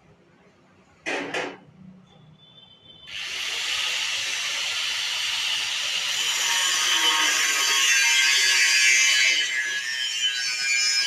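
Two short knocks, then from about three seconds in a loud, steady hissing noise of metalworking on a steel gate, welding or a power tool at work.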